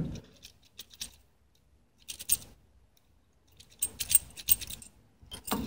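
Light metallic clicks and jingles of a key being worked in a cheap brass euro-profile cylinder lock, with the other keys on its ring jangling. A few scattered clicks come first, then a busier run of clicks in the last couple of seconds.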